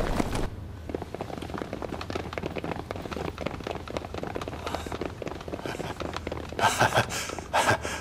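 Many soldiers' boots tramping and shuffling as a squad files quickly into a room, loud at first and then a busy patter of steps and knocks. Near the end a man laughs in a few short bursts.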